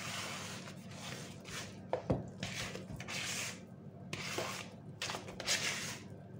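Silicone spatula scraping and scooping thick buttercream around a plastic mixing bowl, in a series of short rubbing strokes.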